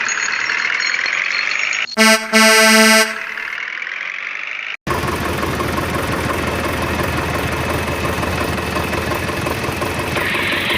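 Vehicle horn honking twice, a short blast then a longer one, after a gliding tone. A motor vehicle engine then runs steadily for the rest of the time.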